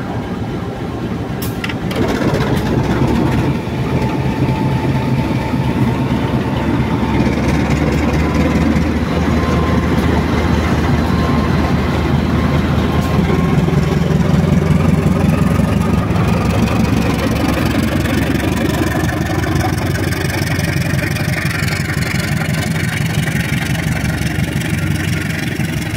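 Diesel engine of a GE CC 201 locomotive (a V12 diesel-electric) running under load as the train pulls away, passing close by with a steady low drone. It is loudest around the middle and eases slightly near the end as the towed electric train cars roll past.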